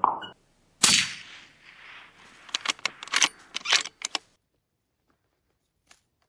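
A single shot from a short-barrelled .308 Christensen Arms MPR rifle about a second in, with a decaying echo tail. A brief sharp sound comes at the very start, and a quick run of sharp metallic clicks and clacks follows, typical of the bolt being worked, before the sound cuts off abruptly.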